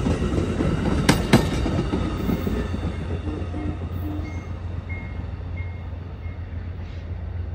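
Passenger train's last cars rolling past on steel rails, wheels clicking twice over rail joints about a second in, then the rumble fading as the train pulls away.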